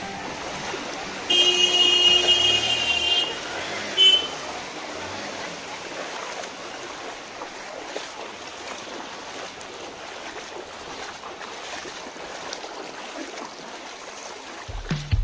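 Feet wading and motorbike wheels splashing through floodwater on a street, a steady watery wash. A vehicle horn sounds for about two seconds near the start, and once more briefly a couple of seconds later.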